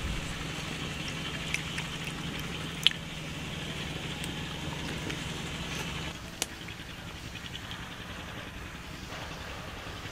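Pot of chicken broth simmering over a wood fire: a soft bubbling hiss with small crackles and pops, a few sharp clicks, and a steady low hum that drops away about six seconds in.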